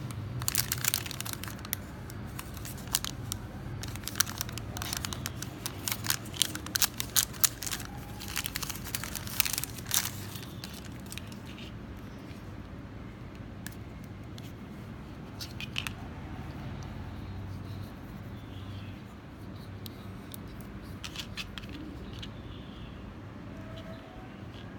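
Sealed plastic-and-paper wrapper of a disposable syringe crinkling and tearing as it is opened by hand: a dense run of sharp crackles over the first ten seconds, then only a few faint handling clicks.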